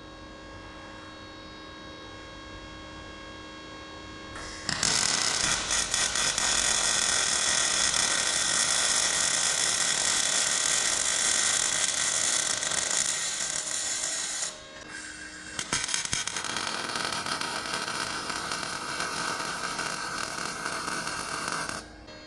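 A steady hum for the first few seconds, then an electric welding arc striking and running with a loud, even crackling hiss for about ten seconds, stopping briefly and starting again for about six seconds more.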